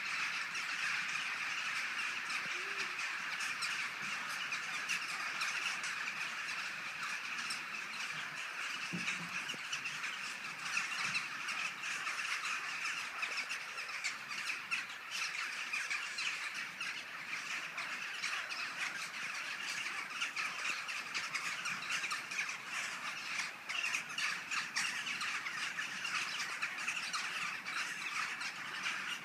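A large rook colony cawing, with many birds calling over one another in a steady, unbroken din.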